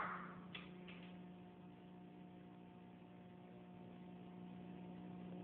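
A steady low electrical hum with fainter steady tones above it, and two faint clicks about half a second and a second in.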